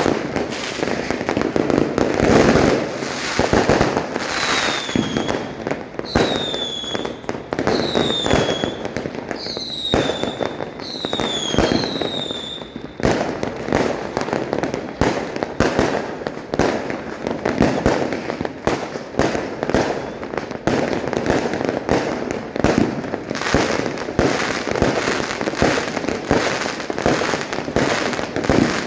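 Fireworks and firecrackers going off all around in a dense, unbroken crackle of bangs. Through the first half, about six high whistles from whistling fireworks each dip in pitch.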